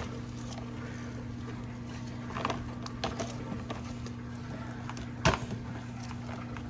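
Toy animal figures knocking and clicking as they are handled: a few short knocks, the loudest a little past halfway, over a steady low hum.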